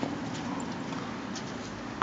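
Tennis ball struck by a racket during a rally: two sharp pocks about two seconds apart, over a steady low background hum.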